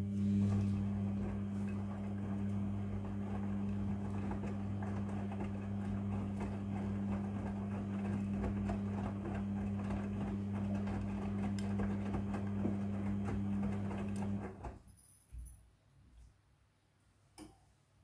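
Front-loading washing machine washing a load: a steady low motor hum as the drum turns, with wet clothes tumbling and rattling inside. The sound cuts off suddenly about fifteen seconds in, followed by a few faint knocks.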